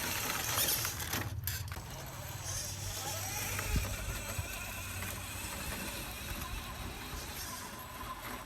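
Electric motors and hydraulic pump of a 1/12-scale RC excavator running, a steady hum with a higher whine that shifts as the machine works.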